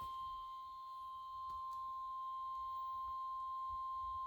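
NOAA Weather Radio warning alarm tone: a single steady high-pitched tone near 1 kHz, held unbroken. It signals that a warning broadcast is about to follow.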